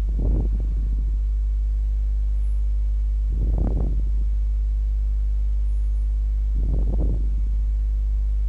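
Steady low electrical hum on the recording, running unchanged throughout. Three brief soft rushing sounds come about three seconds apart.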